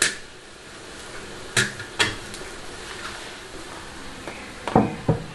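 A metal wire steamer rack clinks sharply against the pot three times, then two duller, heavier knocks of crockery on cookware come near the end, over a faint steady hiss of steam.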